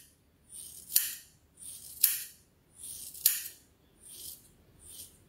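Hair-cutting scissors snipping through a lock of long hair, about five cuts a second apart, each a short rising swish of blades through hair ending in a sharp click as the blades close; the last two are fainter.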